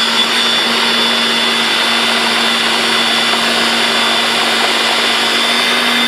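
Countertop blender motor running steadily at full speed, churning a liquid mix of crushed Oreo cookies, milk and cream: a loud, even motor whine with a constant pitch.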